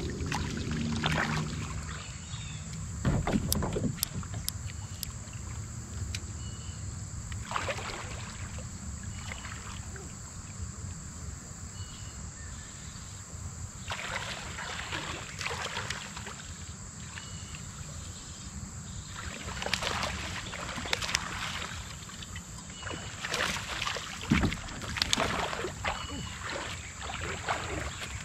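Water splashing and sloshing around a kayak in irregular swishes, over a steady high insect drone.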